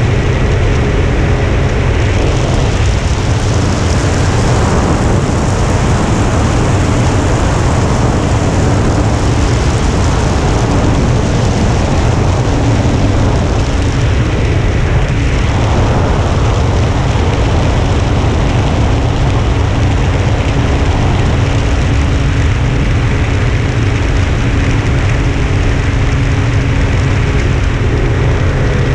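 Wind rushing over the onboard camera of a Carbon-Z Cessna 150 RC floatplane in flight, with the model's electric motor and propeller humming steadily underneath; the hum shifts pitch slightly about twelve seconds in.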